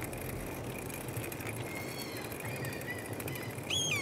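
Steady rushing of a road bike rolling along a lane, tyres on tarmac, with faint high chirps midway and a short, louder whistling call near the end.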